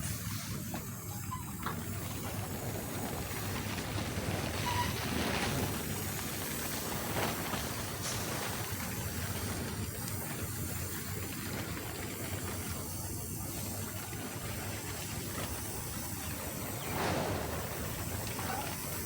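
TIG welding arc hissing steadily over a low hum during a root pass.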